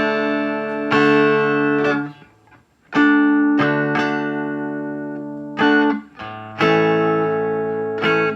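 Electric guitar played through a homebuilt 5F6A (Fender Bassman-circuit) tube amplifier: a series of chords struck and left to ring out, with a brief pause about two and a half seconds in.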